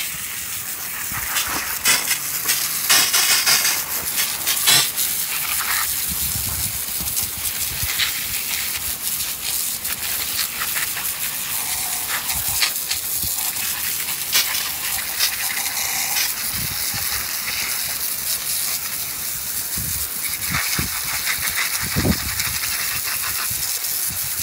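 Garden hose spray nozzle hissing steadily as a jet of water blasts against an elk skull and spatters onto gravel, rinsing off hardened bleach paste, with a few knocks along the way.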